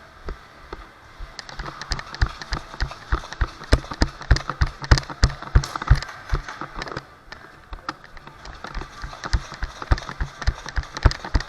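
Footsteps of a person jogging, about two to three steps a second, with gear rattling on each step. They ease off about two-thirds of the way through, then pick up again near the end.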